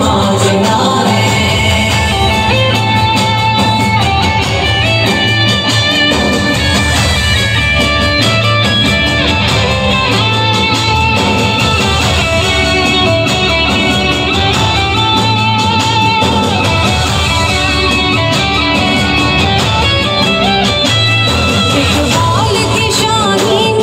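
A woman singing an anthem through a microphone and PA over full instrumental backing. The voice stands out near the start and again near the end, with an instrumental passage between.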